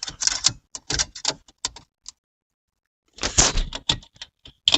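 Irregular sharp clicks and knocks from handling the newly fitted switch panel and its knob: a quick run, a pause of about a second, then another cluster and a few single clicks.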